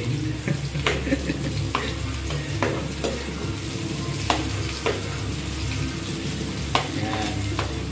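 Garlic and sliced red onion sautéing in oil in a nonstick frying pan: a steady sizzle, with a metal spoon scraping and knocking against the pan about once a second as they are stirred. The onion is still frying toward translucent.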